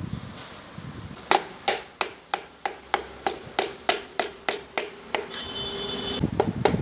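A run of sharp taps, about three a second, starting about a second in, with a short high tone near the end before the taps resume faster; typical of pistons being tapped down into the cylinder bores during engine assembly.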